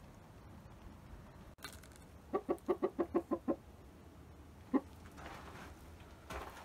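Rooster clucking: a quick run of about eight short clucks, then a single cluck a second later.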